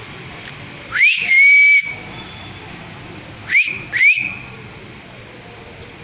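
Whistling: one rising whistle that levels off and holds for about a second, then two short rising whistles in quick succession, over a steady background hiss.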